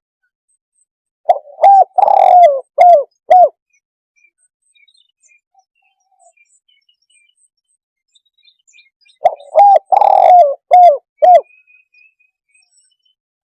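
Spotted dove cooing in two phrases several seconds apart, each a short coo, a longer rolling coo and two quick closing notes. This is the decoy call hunters use to lure wild spotted doves.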